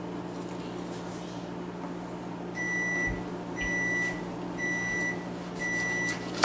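Electronic kitchen beeper sounding four evenly spaced high beeps, about one a second, each lasting about half a second, over a steady low hum.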